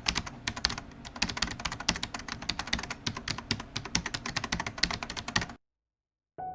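Rapid, irregular keyboard-typing clicks, several keystrokes a second, that stop abruptly about five and a half seconds in. After a short silence, soft piano music begins at the very end.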